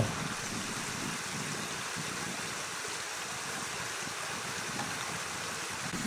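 Steady, even rush of flowing water, like a stream.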